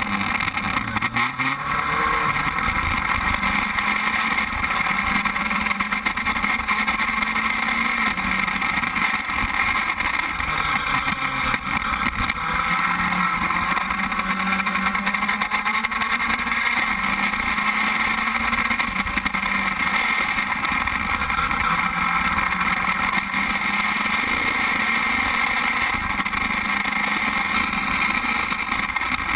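Open-wheel race car's engine running while the car stands still, a steady note whose pitch wanders slightly up and down.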